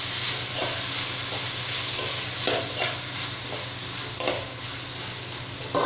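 Chopped ridge gourd and tomatoes sizzling in oil in a metal kadai while being stirred and sautéed, the spoon scraping against the pan every second or so.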